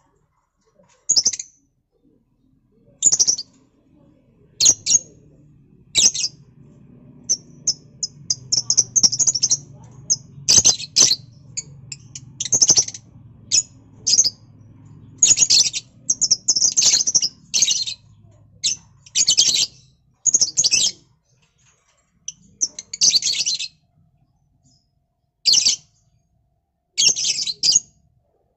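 Lovebirds chirping in short, sharp, high-pitched calls, some single and some run together in quick strings, coming every second or two.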